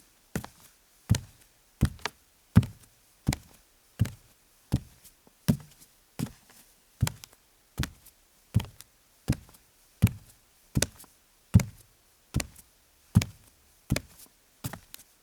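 A man walking barefoot on a wooden floor: steady soft footsteps, each a low thud with a light knock, at an even walking pace of about one and a half steps a second.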